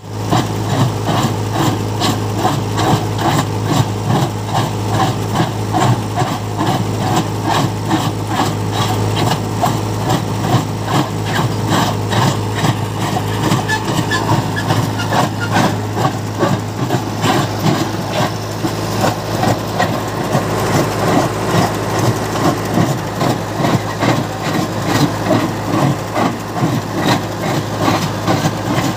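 Tractor-driven stone crusher running: the tractor engine works steadily under a dense, rapid pulsing clatter from the machine, with a constant low hum underneath.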